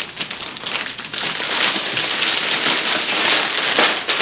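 Clear plastic bag crinkling and rustling as a chessboard is slid out of it and the bag is pulled away, getting louder about a second and a half in.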